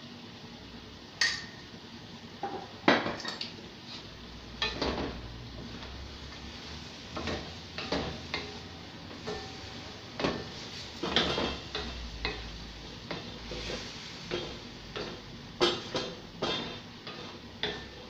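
Wooden spatula scraping and knocking against a metal wok as chicken pieces are stirred, in irregular strokes about one or two a second.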